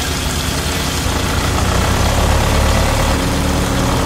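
Tractor engine running steadily at idle while it drives a belt-driven water pump.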